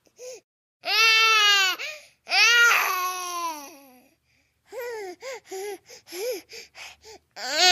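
Cartoon baby girl crying, a voice sound effect: two long wailing cries, then a string of short sobbing, babbling syllables, with a new wail starting near the end.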